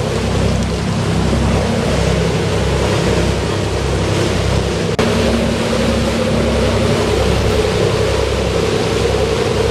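Sportfishing boat running at sea: a steady engine drone with a pulsing low rumble, mixed with the rush of water and wind. It breaks off abruptly for an instant about halfway through.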